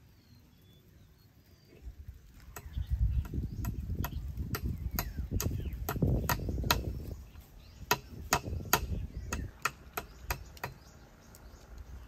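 A run of sharp knocks, about two to three a second, from someone working by hand at a charcoal stove. The knocks start about two and a half seconds in and stop a little before the end, with a low rumble under them.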